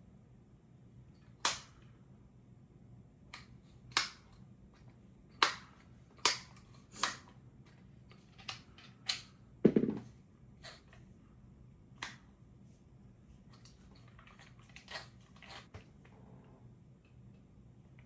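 Irregular sharp clicks and knocks of hand tools and small metal parts being handled while fitting a trigger kit into an AR-15 lower, about a dozen in all. The loudest, a little over halfway through, is a heavier knock with a dull thud.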